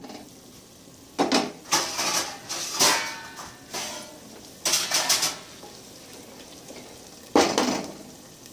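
Wooden spatula stirring and scraping a softened onion, tomato and green-chilli masala in a non-stick pot, with cookware clatter. It comes in three bursts: a long one about a second in, a shorter one around the middle, and a brief one near the end.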